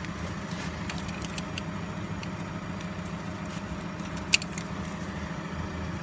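A steady machine hum, even and unchanging, with a few faint clicks and one sharper click about four seconds in.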